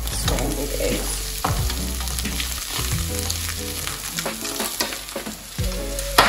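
Food sizzling in a frying pan while a utensil stirs and scrapes it, with many small clicks and one sharp knock near the end.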